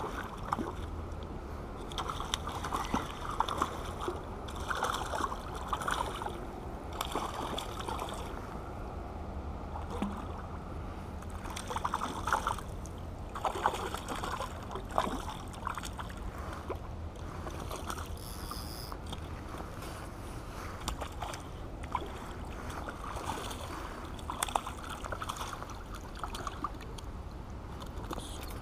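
Water sloshing and splashing against a rocky shore in irregular bursts, as a hooked trout thrashes at the surface and is drawn in to the rocks, over a steady low rumble.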